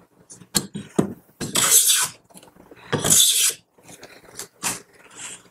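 Sargent No. 400-series iron hand plane with a freshly sharpened blade taking shavings along a board edge: two long hissing planing strokes, with sharp knocks as the plane is set on and lifted off the wood.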